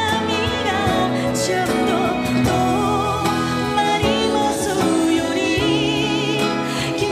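A woman singing a slow Japanese ballad live, accompanied by grand piano and a string ensemble, holding a note with vibrato near the end.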